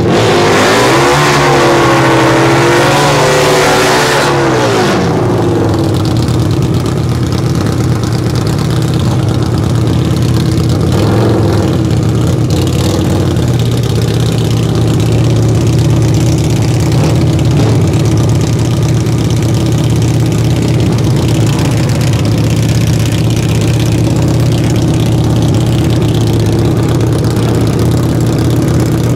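Harley-Davidson VRXSE V-Rod Destroyer drag bike's V-twin revving once, its pitch climbing, holding and dropping over about four seconds, then idling steadily.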